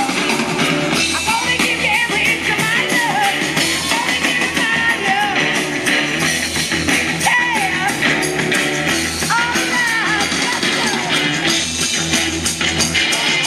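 A song with singing over a band, playing back from a cassette on a Fisher CD-4020 stereo cassette deck.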